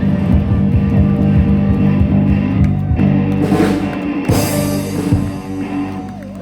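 Live rock band playing loudly, with sustained chords over drums and two crashes about midway; the music dies down toward the end.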